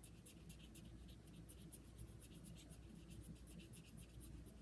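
Faint, quick scratching strokes close to the microphone, several a second, made as ASMR triggers.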